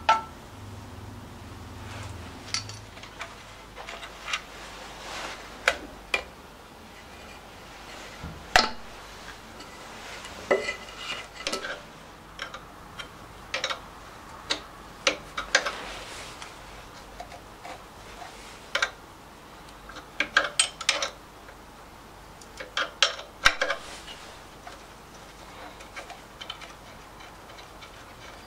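Spanner and metal engine parts clinking and tapping on the valve gear of a Lister LR1 diesel as the rocker-arm adjuster locknuts are worked: irregular sharp metallic clicks, some in quick clusters.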